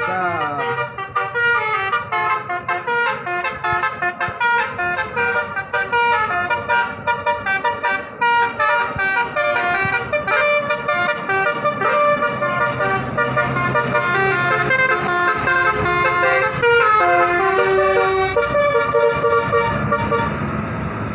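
Bus 'telolet basuri' multi-tone musical air horn playing a fast tune of short stepped notes, without a break.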